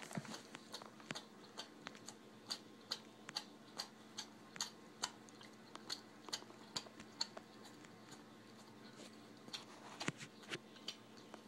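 Bull terrier chewing and gnawing on a rubber Kong toy: irregular sharp clicks and smacks, roughly two a second.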